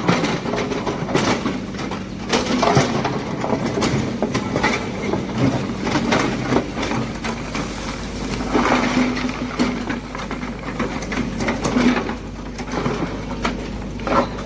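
Excavator working: a steady mechanical hum under many irregular clicks and knocks.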